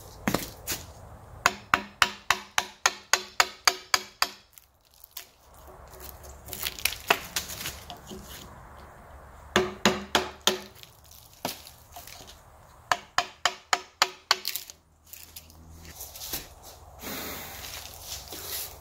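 A flathead screwdriver chipping bark off the edge of a thick cherry slab: several quick runs of sharp knocks, about four or five a second, with scraping between them.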